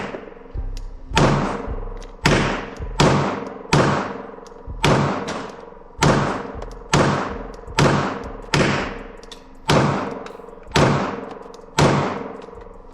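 Twelve or so 9mm pistol shots from a Glock 19 in a carbine conversion kit, fired at about one a second with uneven spacing, each followed by a short ringing echo.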